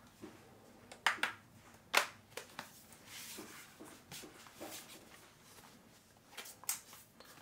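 Handling noise from a laptop being turned over in the hands: a few sharp clicks and taps of fingers and the case, the loudest about one and two seconds in, with soft rustling between.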